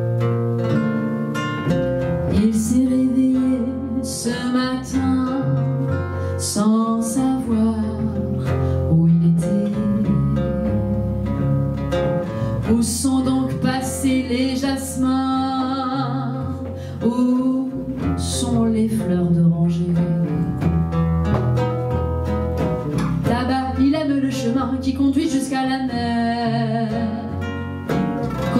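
A live song: an acoustic guitar plucking an accompaniment with a cello, while a woman sings the melody.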